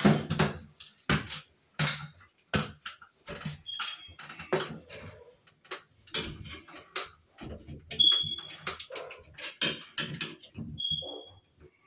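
Irregular clicks and knocks of a screwdriver and hands working on a sheet-metal fluorescent light fixture. Three short high-pitched beeps come through, a few seconds apart.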